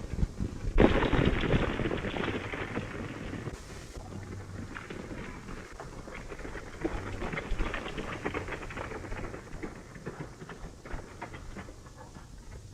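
Hoofbeats of several horses galloping, a dense irregular drumming that jumps louder about a second in and gradually eases.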